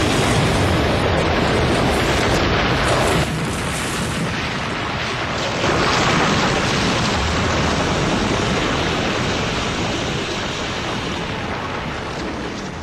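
Loud, continuous rumble and roar of a train smashing into a Renault Espace on a level crossing, with debris scattering. The noise drops suddenly about three seconds in, swells again near six seconds, then slowly fades away.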